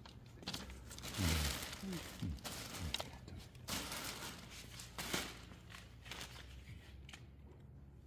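Clear plastic bags packed with harvested greens crinkling and rustling as they are handled, in several short bursts over the first five seconds, with a brief low murmur of a voice about a second in.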